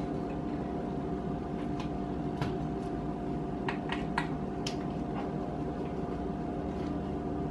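Steady room hum with a constant tone, and a few faint clicks as a heart-shaped cookie cutter is pressed into fudgy brownies in a metal baking pan.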